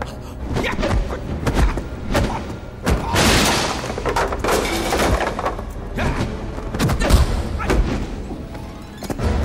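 Dramatic background music under kung fu fight sound effects: a run of sharp hits and thuds, with a longer crashing noise a little over three seconds in.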